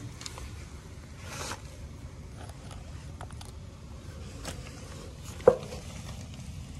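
Old flat-bed grain dryer running just after ignition, its burner and blower making a low steady rumble. A few brief scraping noises sound early on, and a single sharp click comes about five and a half seconds in.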